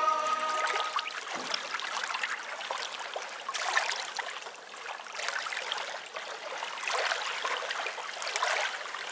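Small waves lapping and splashing against a stony lakeshore, swelling in surges every second or two.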